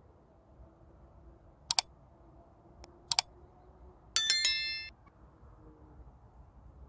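Two quick double mouse clicks about a second and a half apart, then a single bright bell ding with a short ringing decay about four seconds in: the sound effects of a like-subscribe-notification bell animation.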